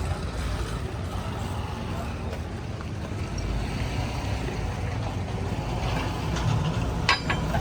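A steady low mechanical rumble, with one sharp knock about seven seconds in.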